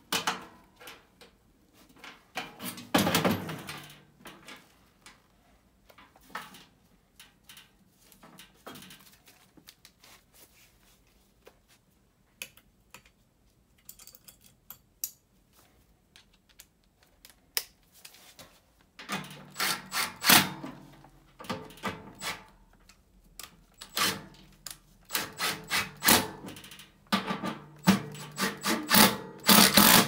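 Metal clanks and knocks from handling a replacement ECM blower motor in its sheet-metal blower housing. From about 19 seconds in, a cordless power driver runs in repeated short bursts, driving bolts on the motor mount.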